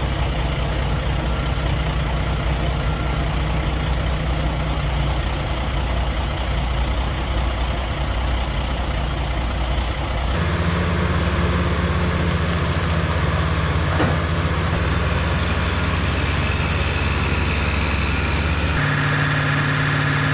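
Heavy diesel machinery engines running steadily. The engine sound changes abruptly twice, about ten seconds in and again near the end, as one machine's sound gives way to another's.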